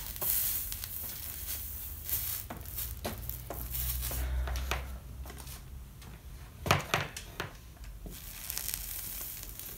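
Handling noise as stained-glass lampshade panels are moved and lifted on a workbench: rustling throughout, scattered light clicks of glass, and a sharper cluster of clacks about seven seconds in.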